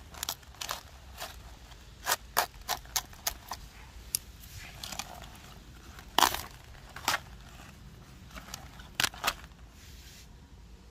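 Pruning shears cutting at a cabbage's leaves and stalk: a string of irregular sharp clicks and crisp snaps, the loudest about six seconds in. They die away shortly before the end.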